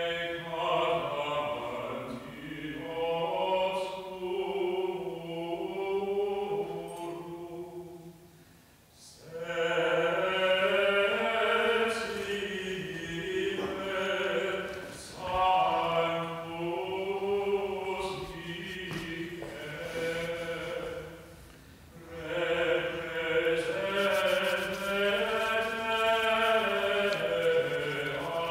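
Liturgical chant: slow sung phrases in three long stretches, with short pauses about 8 and 22 seconds in.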